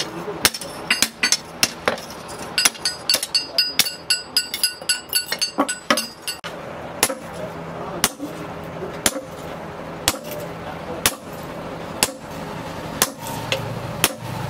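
Hammer blows on a steel blade made from a chainsaw bar, on an anvil. First comes a quick run of sharp metallic strikes, several a second. After a short break there is about one heavy sledgehammer blow a second on the red-hot blade, struck through a top tool held in tongs.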